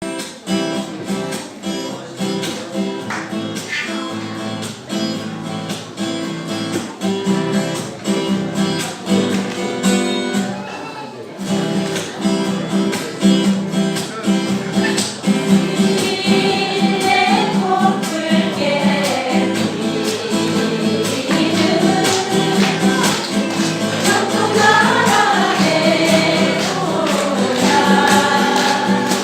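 A small amateur band playing a song on strummed string instruments with a steady beat. Group singing of the melody comes in about halfway through.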